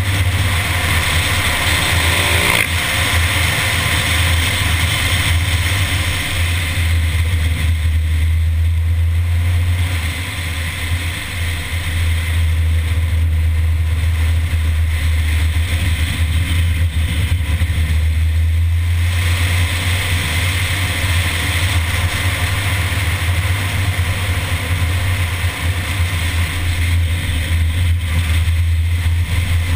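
Mini's engine running under load through a run of bends, mixed with heavy wind rush on a hood-mounted camera; the sound eases off briefly about ten seconds in and again near twenty seconds.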